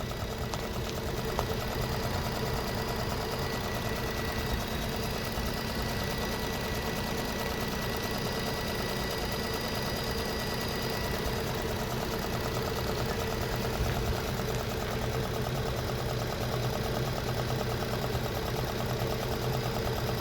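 2011 Infiniti G37's 3.7-litre V6 idling steadily in drive at about 500 rpm, a rough idle whose shake can be felt in the cabin.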